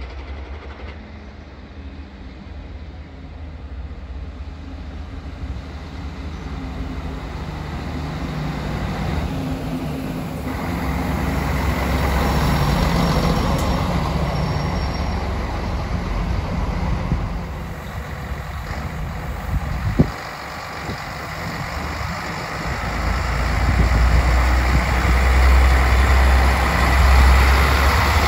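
DB class 641 diesel railcar pulling in along the platform, the running and wheel noise growing louder as it comes alongside. A single sharp click about twenty seconds in. The low diesel engine hum is strongest near the end as the front of the railcar comes level.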